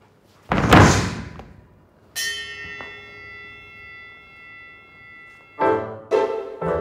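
A loud hit with a rushing tail, then a boxing ring bell struck once, ringing out and dying away over about three seconds. Piano music begins about five and a half seconds in.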